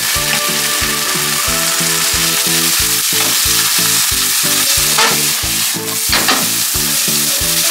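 Thick yakisoba noodles sizzling loudly in a hot, olive-oiled frying pan just after a splash of water is added, the water spitting and steaming off as the noodles are tossed by hand and with tongs.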